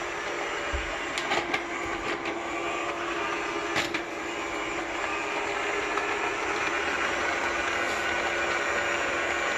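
iSweep S320 robot vacuum running: the steady whir of its suction fan and brushes with a constant hum, broken by a few short sharp clicks about a second in and again just before four seconds.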